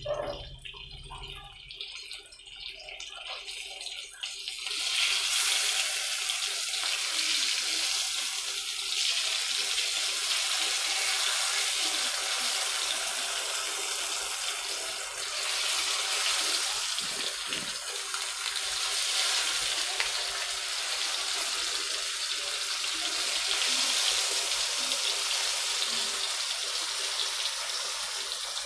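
Pomfret steaks shallow-frying in oil on a dosa tawa, sizzling steadily; the sizzle grows louder about five seconds in and stays up.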